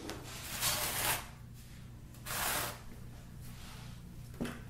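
Two brief bouts of scraping from tools and hands working mortar in a plastic bucket, then a light knock near the end.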